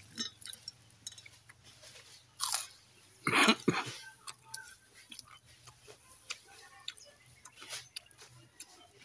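Close eating sounds: chewing and crunching of homemade fried chips, with scattered short crunches and a louder noise about three and a half seconds in.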